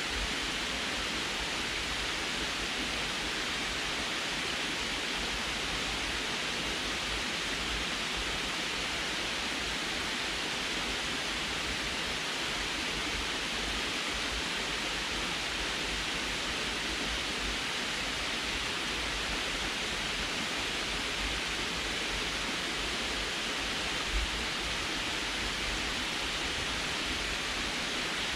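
Water pouring over a low concrete canal dam in a thin sheet down its sloped face and splashing into the pool below: a steady, even rush.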